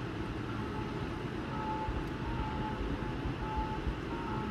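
Steady rushing noise of a heavy rainstorm over flooded streets, with a low rumble on the microphone.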